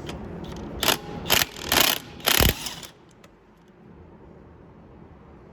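Wrench working a lug nut off a car wheel: four short, loud mechanical rattles in quick succession, then it stops.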